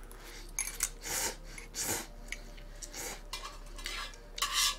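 Chopsticks clinking and scraping against a thin aluminium yangeun ramen pot and its lid as noodles are lifted out: a handful of short separate clatters, the longest near the end.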